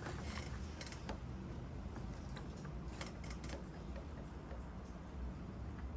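Power drill running in reverse, a left-hand cobalt drill bit grinding slowly into a hardened broken bolt in an engine block, with a steady low motor hum and scattered small clicks.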